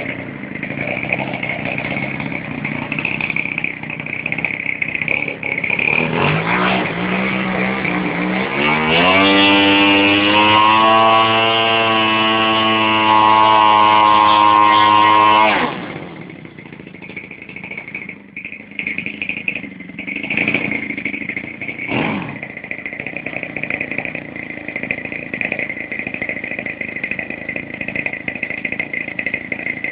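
Fuji 50cc single-cylinder two-stroke petrol engine of a large RC model Cessna 172, driving its propeller. It idles, is throttled up about six seconds in, climbs to a steady high-rpm run, is cut back to idle about halfway through, and is blipped briefly twice afterwards.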